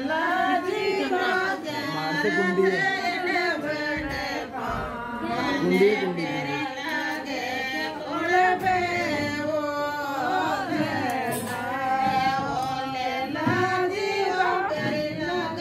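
Several women singing a Rajasthani folk song together in chorus, their voices wavering and overlapping.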